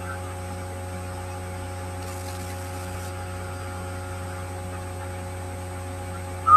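Steady electrical mains hum, made of several steady tones at once, holding at an even level with nothing else over it.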